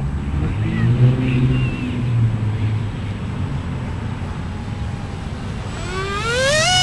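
Brushless electric motor and rear pusher propeller of an RC flying wing (E-flite Six Series 2700kv) whining as it makes a low fast pass. The whine rises steeply in pitch about six seconds in, then holds as a steady high tone. A low rumble is heard in the first few seconds.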